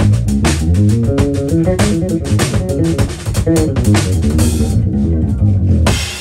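Live funk jam: electric bass guitar playing a busy, syncopated line with a drum kit keeping the groove. The drums drop back about five seconds in, leaving mostly bass, then come back with a hit near the end.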